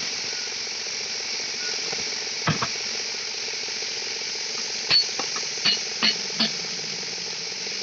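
Sharp metallic clinks of tools striking a backhoe loader's steel wheel rim during a tyre change, about six spread over a few seconds, each briefly ringing, over a steady hiss.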